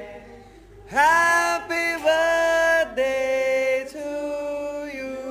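A voice singing a slow melody. It scoops up into the first note about a second in, then holds each note for about a second.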